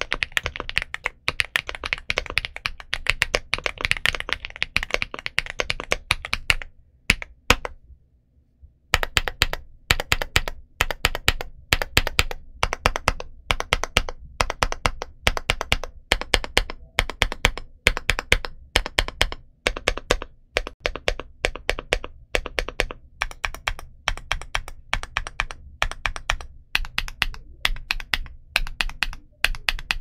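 Feker Galaxy80 aluminum TKL mechanical keyboard in stock form, with Feker Marble switches and DS PBT MDA-profile keycaps, being typed on. Fast continuous typing gives way about seven seconds in to a pause of a couple of seconds, then single key presses at a steady pace of about two to three a second.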